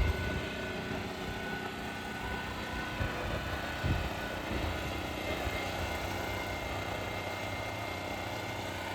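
An engine running steadily, with a constant drone and a faint steady whine, and a couple of light knocks about three and four seconds in.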